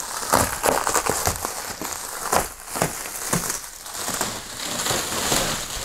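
Plastic stretch wrap being pulled and torn off a shipping carton, with irregular crinkling and crackling.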